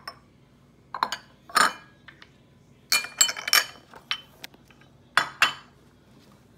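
Kitchen dishes clinking: glass mixing bowls and utensils knocked and set down against each other and the counter, in a series of about eight or nine sharp clinks in irregular clusters.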